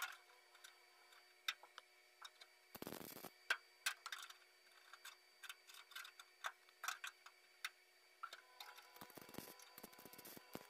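Scattered light clicks and taps of locking pliers being set and adjusted on a sheet-metal heater channel panel, with a short noisy burst about three seconds in. Near the end, brief crackling bursts of a MIG welder tacking the panel.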